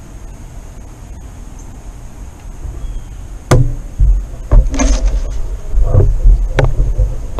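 A sharp knock about three and a half seconds in, then a string of heavy, low thumps and knocks from the rifle and camera being handled as the shooter moves off. Under it is a steady low rumble of wind on the microphone.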